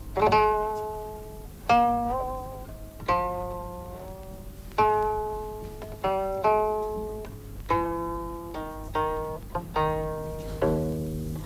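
Chinese plucked zither music: slow single plucked notes, each left to ring and fade, some sliding in pitch, coming faster toward the end.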